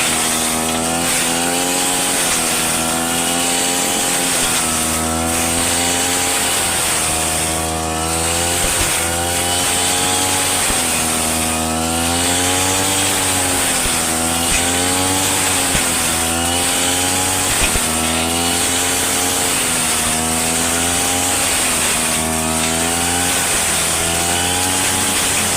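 Petrol lawn mower engine running steadily, its pitch dipping and recovering every two seconds or so.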